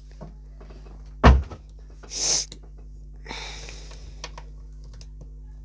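Plastic Stickbot figures being handled on a desktop: one sharp knock about a second in, then brief rustling and scuffing as they are picked up, with a few faint clicks.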